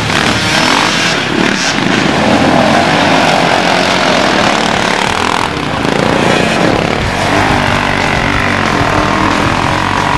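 Several enduro motorcycle engines revving at once, their pitch rising and falling as the bikes struggle through deep mud.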